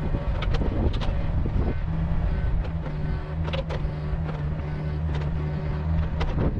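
Yanmar VIO50 mini excavator's diesel engine running under load as the bucket pushes against a tree trunk. The engine note grows stronger about two seconds in, with a higher tone coming and going and scattered sharp clicks.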